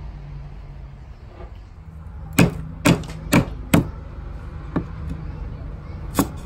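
Cleaver chopping lemongrass stalks on a thick round wooden chopping board: four sharp knocks about half a second apart a little over two seconds in, then a couple of lighter cuts later on.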